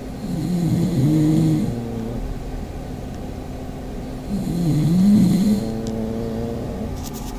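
Pug snoring: two drawn-out, wavering snores about four seconds apart, each lasting about a second and a half.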